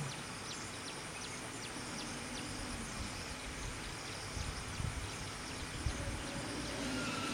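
Outdoor background noise: a steady hiss with many faint, quick high chirps scattered throughout, and a few low rumbles near the middle.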